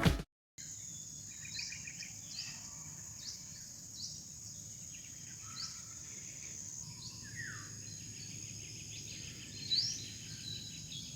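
Rural outdoor morning ambience: insects keep up a steady high buzz while birds call, with short rising chirps repeated about once a second, a few quick trills, and one falling whistle partway through.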